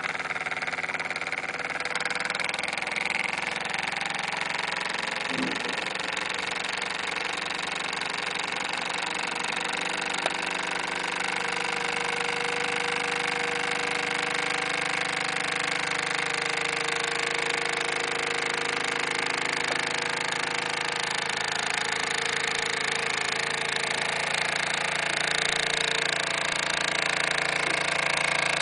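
Bowman M180 model steam engine running steadily, a continuous mechanical noise with a faint steady tone that comes in about halfway through.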